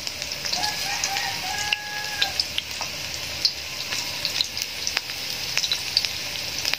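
Carrot slices frying in hot oil in a wok: a steady sizzle with frequent small crackles and pops, as tongs move the pieces. A faint drawn-out tone sounds in the background from about half a second to two seconds in.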